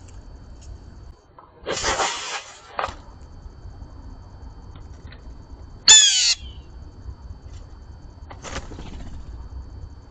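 Blue jay calls: a harsh call about two seconds in, a louder call made of quick falling notes about six seconds in, and a shorter harsh call near the end.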